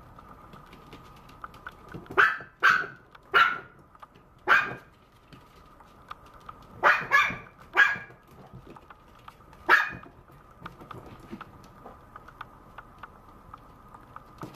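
Maltese puppy barking: eight short, high-pitched barks, a run of four about two seconds in, a run of three about seven seconds in, and a single bark near ten seconds.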